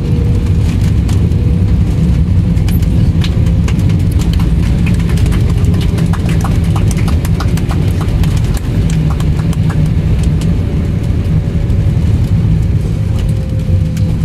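Jet airliner cabin noise while taxiing after landing: a loud, steady engine and rolling rumble with a faint held tone. Many irregular clicks and rattles through the middle of the stretch.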